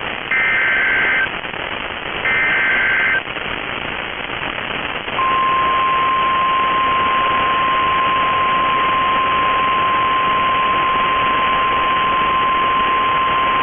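NOAA Weather Radio emergency alert signal over radio static hiss. The last two bursts of the SAME digital header screech for about a second each. About five seconds in, the steady one-pitch 1050 Hz warning alarm tone starts and holds, the signal that a new warning is about to be read.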